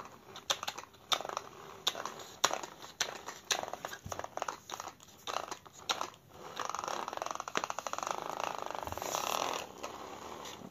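Wired-remote plastic toy car being handled: scattered plastic clicks and knocks, then from about six seconds in its small electric motor and plastic gears run with a steady rattling whirr for about four seconds.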